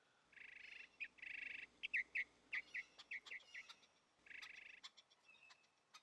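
Lesser goldfinch singing: three buzzy trills, each about half a second long, mixed with a run of quick down-slurred chirps.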